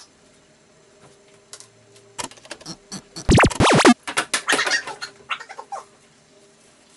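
Electronic sound effect for the homemade enlarging machine working: a loud sweeping zap a little past three seconds in, followed by about two seconds of rattling, crackling clicks.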